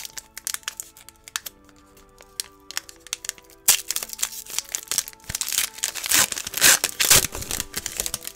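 Foil wrapper of a Pokémon trading-card booster pack crinkling and tearing as it is opened and the cards are slid out, in quick crackly bursts that are loudest in the second half. Soft lo-fi background music plays underneath.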